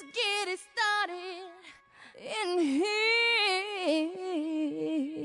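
A high voice holding long, wavering sung or howled notes with a shaky vibrato, in several phrases with short breaks between them.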